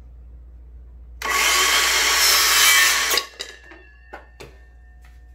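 Power saw cutting through a length of MDF cove moulding: about two seconds of loud cutting starting about a second in, stopping abruptly. A few light knocks follow as the cut piece is handled.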